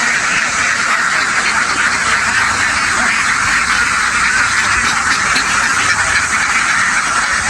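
A very large flock of domestic ducks quacking all together, a dense, continuous chorus.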